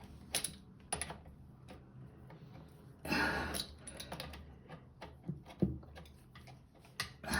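Scattered light metallic clicks and ticks of pliers gripping and turning the nut on a toilet's flexible water supply hose as it is slowly unscrewed, with a brief rushing noise about three seconds in.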